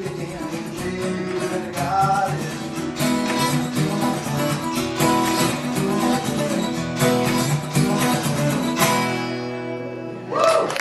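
Acoustic guitar strumming in a steady rhythm, ending on a final chord that rings and fades away; a cheer from the audience breaks in at the very end.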